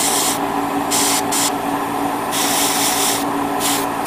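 Gravity-feed airbrush spraying paint in several short hissing bursts, light passes over a masked model part. A steady hum runs underneath.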